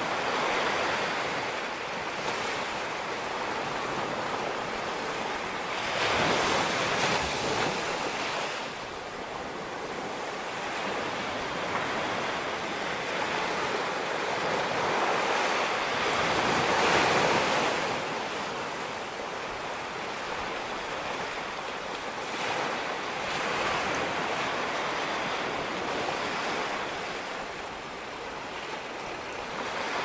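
Surf washing onto a sandy beach, swelling and falling back every several seconds, with wind gusting across the microphone.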